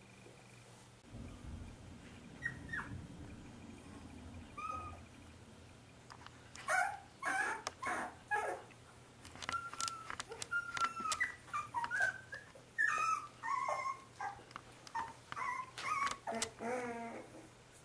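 Young Pembroke Welsh Corgi puppies, about 25 days old, whimpering and squeaking. A couple of faint squeaks come first, then a run of short high cries starts about six seconds in, several a second at times, with a longer whine near the end.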